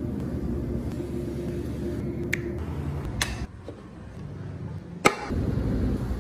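Sharp wooden clicks as the small moving parts of a hand-carved wooden model pickup truck are worked by hand, over a steady low hum. There are three clicks, and the loudest comes about five seconds in.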